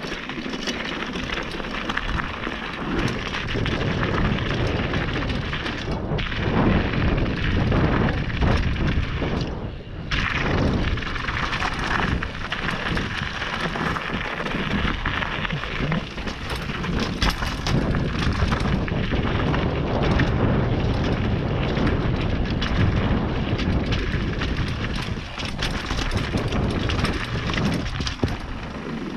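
Mountain bike descending fast on a rough gravel trail: tyres crunching over loose stones and the bike rattling with constant small knocks, under heavy wind buffeting on the camera microphone.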